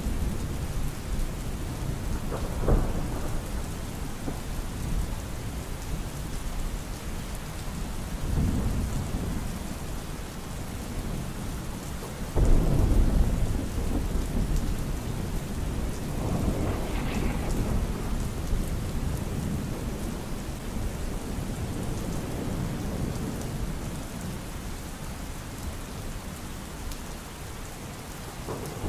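Steady rain hiss with several rolls of low thunder rumbling through it. The loudest roll comes a little before halfway.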